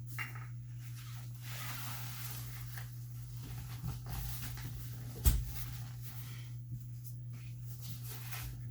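Parts of a playpen frame being handled during assembly: soft rustling and a few light clicks, with one sharp knock about five seconds in, over a steady low hum.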